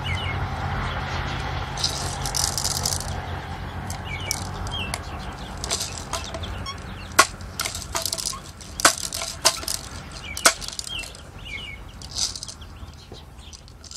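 Scattered sharp clicks and rattles of an air gun being handled while a pellet is looked for in it, a few louder clicks in the middle, with brief rustling and small birds chirping now and then.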